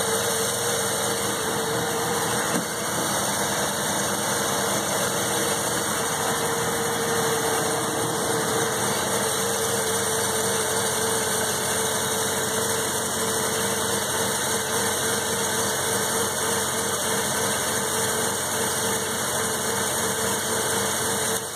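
Mazda 12A two-rotor rotary engine of a 1984 RX-7 idling steadily on part choke while it warms up from a cold start after sitting for 13 years.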